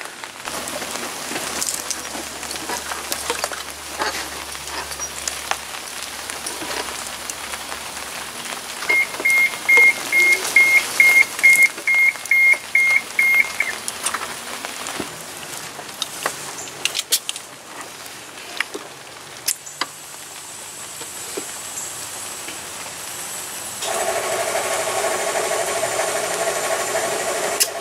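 A rapid string of about a dozen high electronic beeps, then, about 24 seconds in, a home-built air compressor kicks on and runs with a steady hum.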